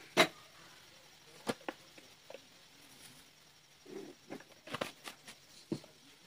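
Light knocks and taps on a glass bowl as dried chillies and salt go in with a plastic spoon: a sharp knock just after the start, a few single taps, then a quick run of taps near the end.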